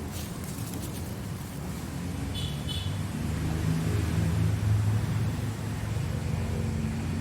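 A motor vehicle passing close by: a low engine rumble that builds to its loudest about halfway through and then holds. Two short high chirps sound about a third of the way in.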